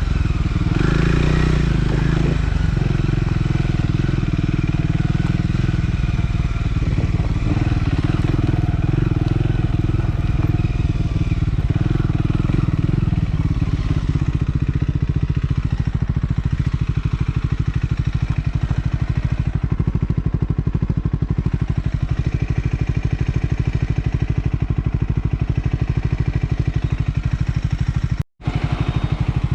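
Triumph Scrambler 400 X's single-cylinder engine running under way, its revs rising and falling through the first half, then settling into a steady lower note. The sound cuts out for an instant near the end.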